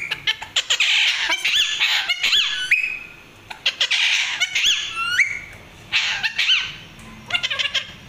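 Pet Alexandrine parakeets calling in harsh, squawky bursts mixed with short rising whistled notes. The calls come in about four spells with short pauses between.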